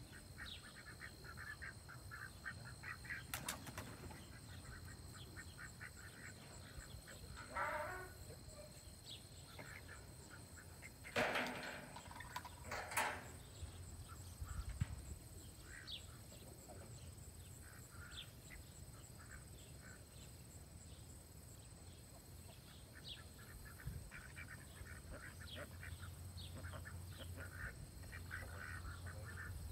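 A small flock of ducks quacking in short, repeated calls, with a few louder sounds around eight seconds and again between eleven and thirteen seconds in.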